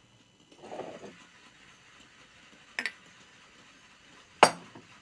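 A small glass bottle being handled: a short, soft scrape about a second in, then a light clink of glass near three seconds and a sharp, louder glass clink near the end.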